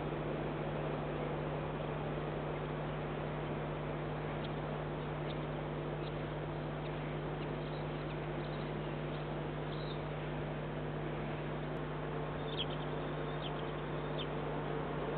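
Steady low hum over a background hiss, with a few faint, short, high bird chirps now and then.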